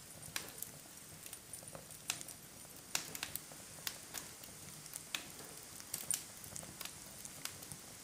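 Bonfire crackling, with irregular sharp pops and snaps from the burning wood.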